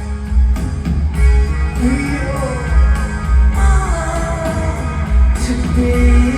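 Rock band playing live: a lead vocal sung over electric guitar, bass and drums, with a steady heavy low end.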